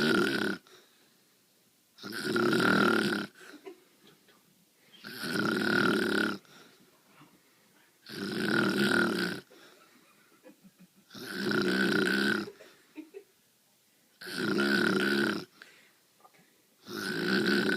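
A sleeping woman snoring, one long rasping snore of a second or so about every three seconds, with quiet breathing gaps between.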